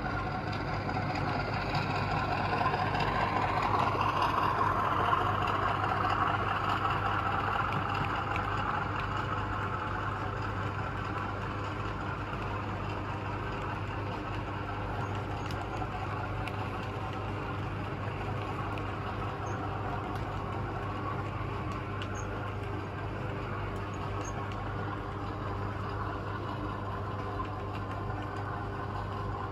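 Engine-driven outdoor machine running steadily with a constant low hum. A rushing sound on top is louder for the first several seconds, then evens out.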